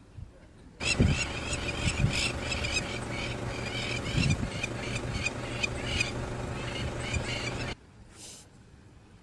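Animals at a kill calling over a carcass: many short, harsh, high calls come close together and overlap, with a few low thuds. The sound cuts in sharply about a second in and stops just as sharply near the end.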